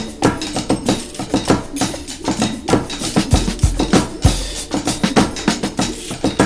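Background music with a fast, busy drum beat; deep bass notes come in about halfway through.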